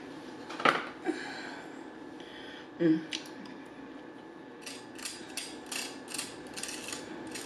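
Cardboard pie sleeve crackling, a soft knock, then crunchy chewing of a Jollibee peach mango pie's crispy fried crust, about three crunches a second through the second half.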